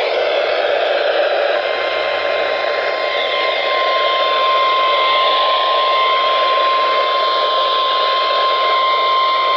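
NOAA Weather Radio broadcast heard through heavy static hiss from weak reception. A single steady alert tone, the 1050 Hz Warning Alarm Tone, fades in about a second and a half in and grows louder a couple of seconds later, held unbroken.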